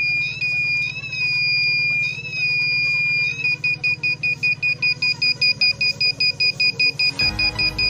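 Small piezo buzzer in a transistor circuit sounding a high, slightly wavering tone, which breaks into fast beeps, about five a second, a little before halfway.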